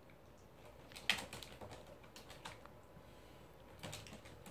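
A toy poodle's claws clicking on a plastic pet toilet tray as it steps and turns: irregular light taps starting about a second in, a few of them close together near the end.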